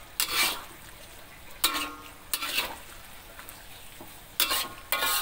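Metal spatula scraping and stirring fried tofu and cauliflower in sauce in a metal wok: about five scrapes, some with a short metallic ring, over a faint steady sizzle.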